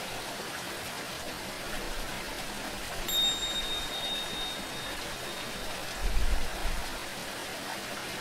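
Steady rush of running water, and about three seconds in a single tingsha strike: a high, clear ringing tone that fades over about two seconds. A brief low rumble comes about six seconds in.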